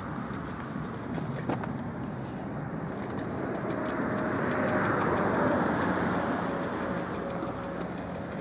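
A road vehicle passing: its tyre and engine noise swells to a peak about five seconds in and fades again. A single sharp click about a second and a half in.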